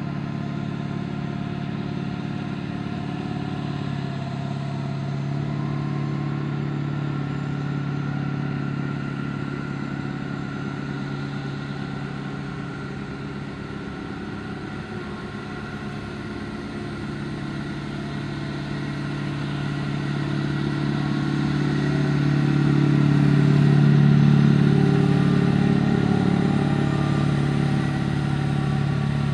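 Aircraft tow tug's engine running steadily as it pulls an Airbus A380 past, with a low hum that swells to its loudest about two-thirds of the way through as the tug and nose go by, then eases a little.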